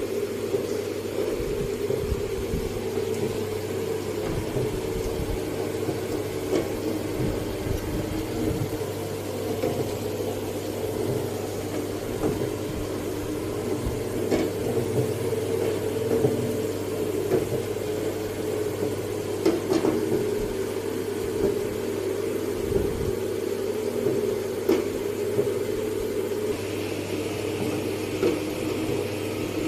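Long cotton wick making machine running with a steady motor hum, with a few light clicks and knocks scattered through.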